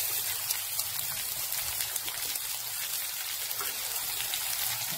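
Sliced onions sizzling in hot coconut oil in a pan, a steady fine crackling hiss.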